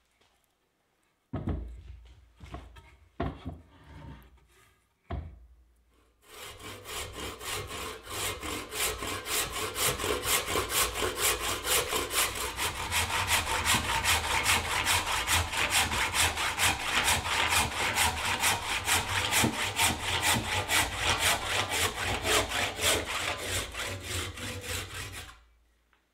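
A handsaw cutting through a peeled rowan handle blank held in a vise, in steady back-and-forth strokes of about three a second for nearly twenty seconds. A few knocks come before the sawing starts.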